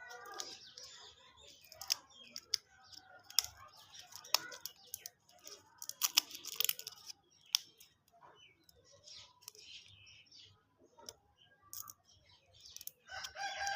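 Plastic lollipop wrappers being handled and torn open: irregular crinkling and sharp crackles, with short rustling bursts.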